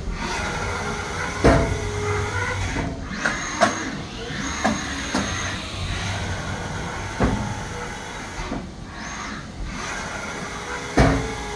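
Haas SL40T CNC lathe running. Its tool turret and axes move with a whine that rises in pitch twice and a string of sharp metallic clunks as the turret indexes and locks, over a steady low machine hum.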